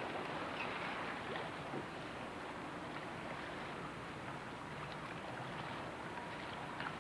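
Steady rush of wind and water around a sailboat under way.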